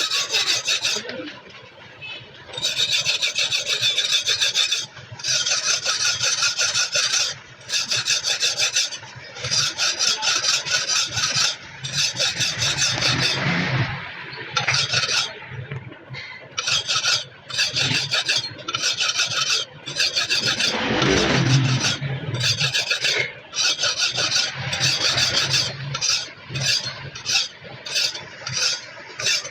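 Rasping strokes of metal being sharpened by hand on a cleaver blade, worked back and forth. The strokes are long and slow at first and quicken to short strokes about twice a second near the end. A low sweeping hum passes under them twice.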